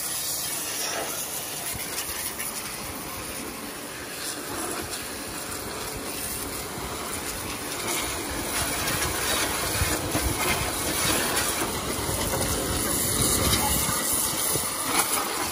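Pressure washer jet spraying water onto a tractor's mud-caked engine and sheet metal: a steady hiss that gets louder and heavier about eight seconds in, as the jet is turned onto the battery tray and engine.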